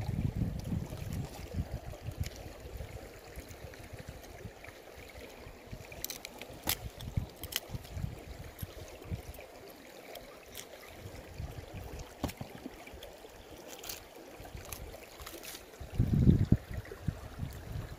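Shallow stream trickling steadily past ice and rocks, with a few sharp clicks and scrapes as a knife works through a rockfish on a stone. A burst of low rumbling about sixteen seconds in is the loudest sound.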